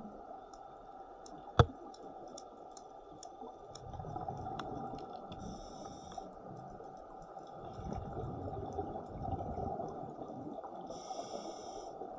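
Scuba diver breathing through a regulator, heard underwater: a short hiss on each inhale, about every five and a half seconds, and a low rumble of exhaled bubbles between them. Faint scattered ticks run throughout, and one sharp click about a second and a half in is the loudest sound.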